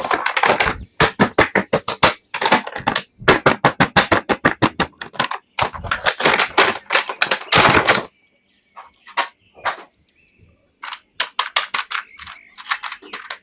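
Rapid series of sharp, loud clicks and snaps, several a second, thinning out after about eight seconds into fewer, fainter clicks.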